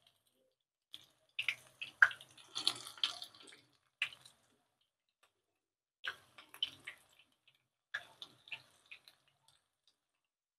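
Broccoli pakoras deep-frying in hot oil, crackling and spattering in three spells of clustered pops, mixed with clicks of metal tongs in the nonstick pan as the fritters are turned.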